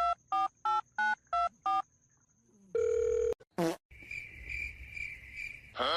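Telephone keypad dialing tones: a run of short two-note beeps, about three a second. They are followed by a brief steady beep and a high pulsing ringing tone lasting about two seconds.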